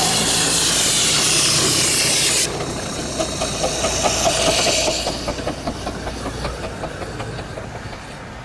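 15-inch-gauge miniature steam locomotive hissing steam loudly, the hiss cutting off suddenly about two and a half seconds in. It is followed by a quick, even rhythm of beats from the running train, fading away.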